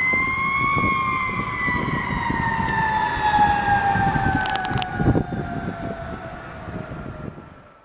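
Fire engine siren wailing: the pitch peaks about a second in, then slides slowly down and fades away near the end, over the rumble of the pumper's engine and road noise. A thump about five seconds in.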